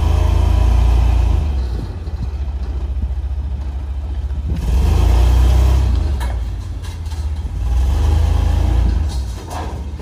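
Deep, steady bass notes from a competition car-audio van's Crossfire subwoofer system, swelling loud three times, with a few sharp clicks in between.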